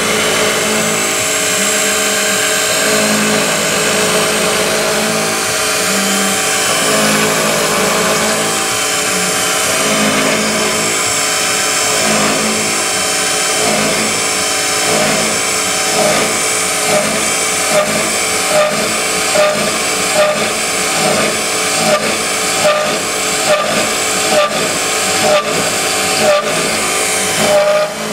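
Small Syil X3 CNC mill's spindle running with a 6 mm end mill cutting metal during adaptive-clearing roughing, a steady whine and hiss of cutting and coolant. From about halfway on, the cut pulses regularly, about one and a half times a second.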